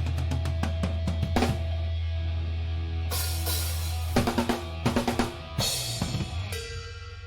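A rock band's drum kit played live, with fast snare and bass drum hits, then a run of loud cymbal crashes about halfway through, all over a steady low drone. The hits ring out and fade as the song ends.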